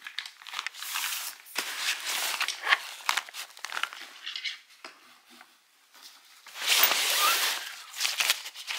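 Nylon ski bag fabric rustling and crinkling as gear is handled and packed into it, with small clicks from skis and straps, and a louder rustle about seven seconds in.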